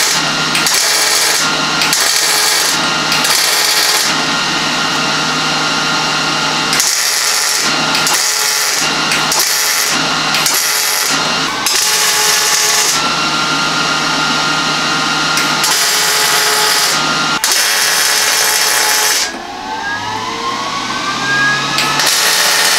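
MIG welder burning steel angle-iron box mounts onto a truck frame: the crackling arc runs in a string of short welds, each stopping and starting a second or so apart, with longer runs through the middle. Near the end it pauses briefly while a faint rising whine sounds, then one more weld starts.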